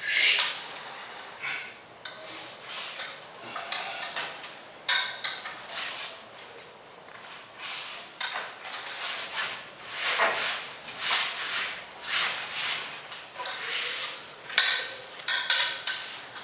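Wooden long staff (jang bong) whooshing through the air in a series of swings and spins, irregular swishes with several louder, sharper ones near the end.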